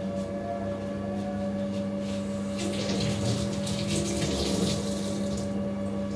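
Tap water running into a sink for about three seconds, starting and stopping, over a steady low hum.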